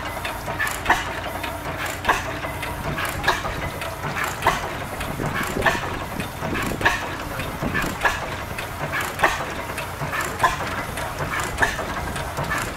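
1909 International Harvester Victor horizontal single-cylinder stationary gas engine running, with a sharp exhaust bang about every second and a quarter and lighter mechanical clicking between the bangs.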